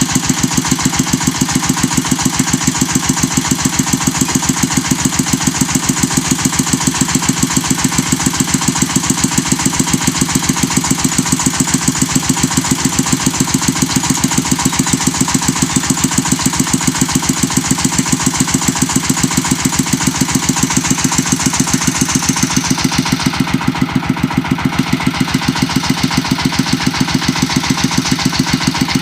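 Brick-making machine's engine running steadily under power, with a rapid, even beat of several pulses a second.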